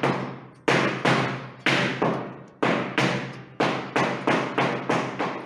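Flamenco shoes striking a hard floor in a run of stamps, each one ringing briefly in the room, about two a second and coming faster after about four seconds.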